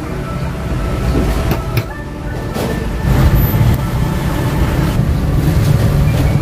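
Busy street traffic: motorbike and car engines rumbling past, with a few short clicks in the first two seconds.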